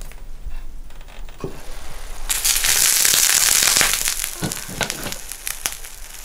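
Mustard oil and water boiling in a new stone pot that is being cured before its first cooking. A loud sizzling hiss swells about two seconds in and eases after a second or two, followed by scattered crackling pops.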